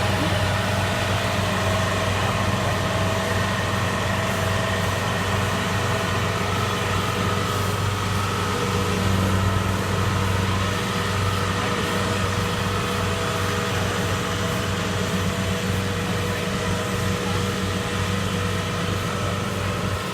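Kubota DC70 rice combine harvester running steadily: a constant diesel engine drone with a steady whine from its machinery on top.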